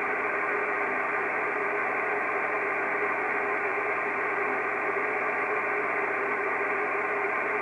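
Kenwood TS-680S transceiver's receiver hiss on the 6 m band: steady static cut off above and below like a voice channel, with a few faint steady tones in it. It is the sound of an empty frequency, with no station transmitting.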